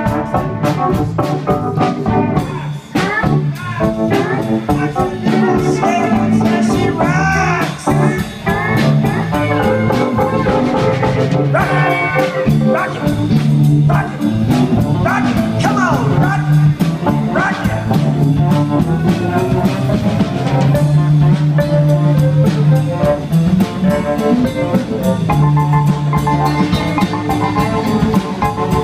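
Live band playing, with drum kit, electric bass, keyboards and pedal steel guitar and a steady drum beat. Sliding notes bend up and down several times.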